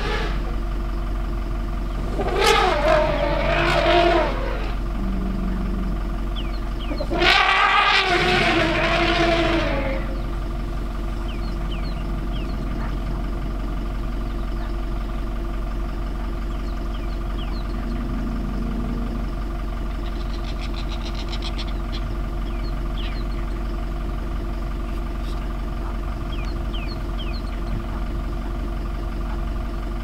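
A vehicle engine idling steadily, a constant hum of several steady tones. Two louder pitched sounds break over it, about two and a half and seven and a half seconds in, each lasting a second or two.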